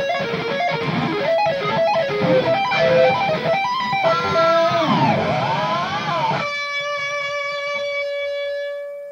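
Electric guitar solo: fast runs of notes, then bent notes sliding up and down, ending on one long held note that rings out and fades away.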